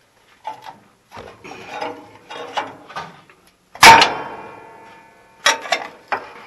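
Steel pry bar working against a welded steel brace: scraping and light clanks, then a loud metallic clang about four seconds in that rings on for over a second, followed by two quicker clanks.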